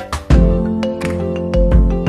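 Background music: held tones over a regular deep beat.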